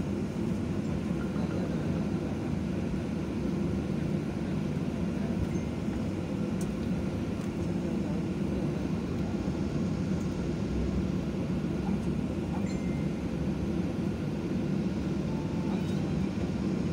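Steady low rumble inside an airliner cabin as the plane taxis after landing, its engines running at taxi power.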